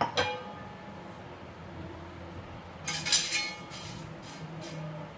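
Metal cookware clinking as a frying pan is handled at a kitchen sink: a ringing clink at the start, then a quick cluster of clanks about three seconds in, over a faint steady low hum.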